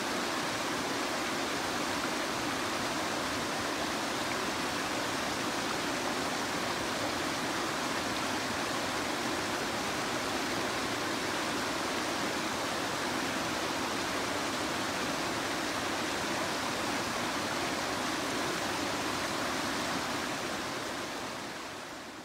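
River water spilling over an inflatable rubber weir and churning into white water below it: a steady rushing that fades out near the end.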